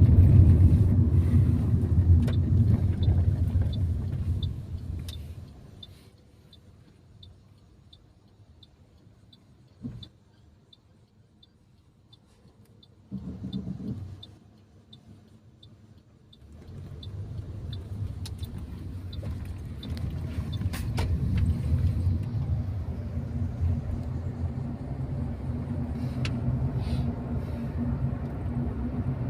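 Low rumble of road and engine noise inside a moving taxi, dying away about six seconds in as the car comes to a stop, then building again about ten seconds later as it pulls off. Through the first half a turn signal ticks steadily, about one and a half times a second.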